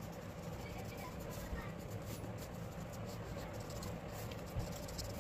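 Paintbrush bristles brushing and scratching across paper in short, irregular strokes over a steady low background hum.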